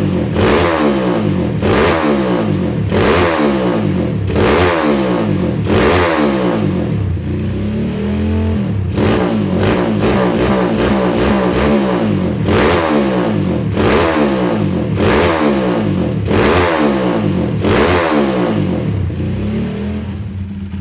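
Suzuki Satria FU motorcycle's single-cylinder engine blipped over and over, each rev jumping up and falling back, about every second and a half, with a brief lull near the middle.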